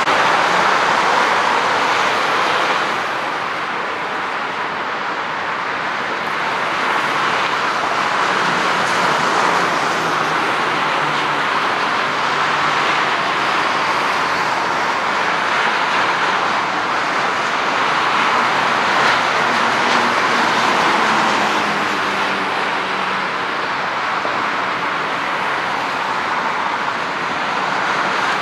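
McDonnell Douglas MD-82's rear-mounted Pratt & Whitney JT8D turbofans running at taxi power, a steady jet hiss and drone heard from a distance.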